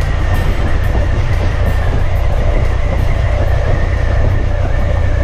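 Suzuki Gladius 650 V-twin motorcycle riding at a steady speed: engine running with a heavy, steady low rumble of wind and road noise.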